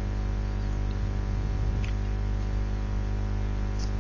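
Steady electrical hum made of many evenly spaced tones, with two faint keyboard clicks about two seconds apart.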